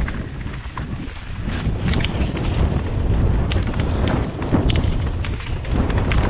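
Downhill mountain bike descent on a rough dirt trail: wind rushing on the camera's microphone over the tyres' rumble, with many sharp rattles and clicks from the bike as it bounces over the ground.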